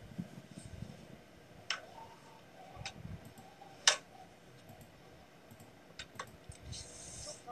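About five sharp, separate clicks a second or more apart, the loudest about four seconds in, over faint room noise, with a short hiss near the end.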